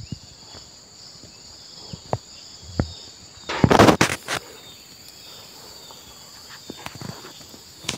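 Steady high-pitched insect drone in the field, with a few soft knocks and one loud noisy burst lasting about a second, a little over three and a half seconds in.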